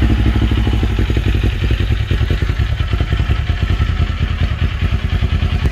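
Kawasaki Z400's parallel-twin engine idling steadily, with an even, quick run of exhaust pulses.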